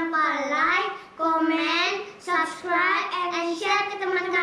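Young girls singing a short tune together, with long held notes broken by brief pauses.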